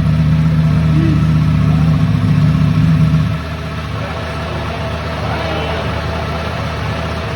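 Ducati Panigale V4R's 998 cc V4 engine idling. It holds a steady, louder note, then about three seconds in drops back to a quieter, steady idle.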